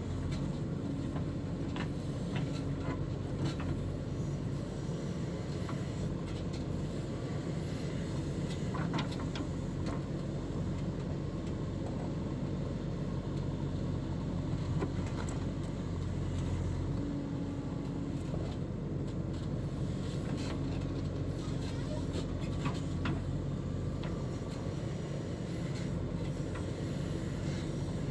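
JCB 3DX backhoe loader's diesel engine running steadily under working load, with a few sharp knocks from the machine at work.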